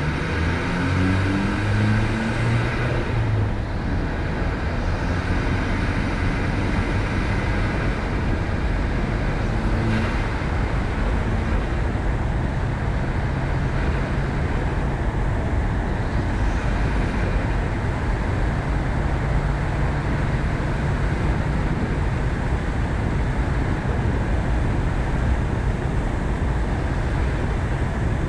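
Ford Focus ST driving, with engine and road noise. The engine note rises as the car accelerates over the first few seconds, then settles into a steady cruise.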